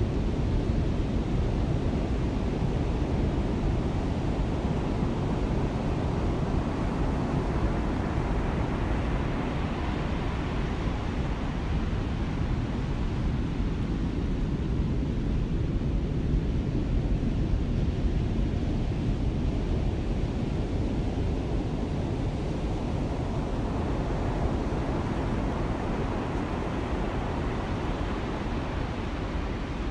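Heavy surf from a large swell breaking and washing, a steady low rumble with a hiss of foam that swells through the middle and then eases.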